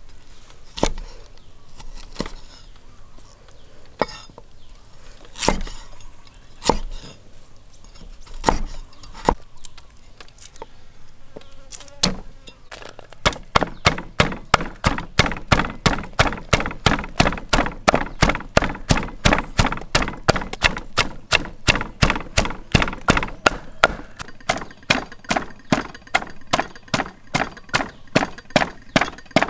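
Knife chopping on a cutting board: a few separate cuts at first, then from about halfway a fast, steady chopping of about four strokes a second.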